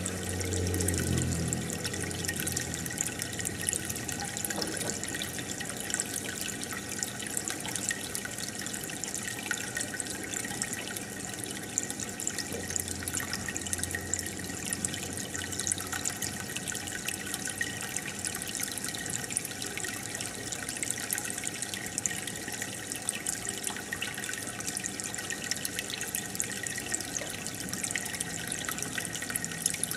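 Aquarium water bubbling and trickling steadily, the many small pops of bubbles rising through the tank. A brief low hum comes in about a second in and again around halfway.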